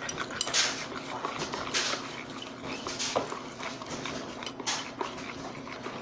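Utensil scraping and clinking against a mixing bowl in irregular strokes, stirring food colouring into glue for slime.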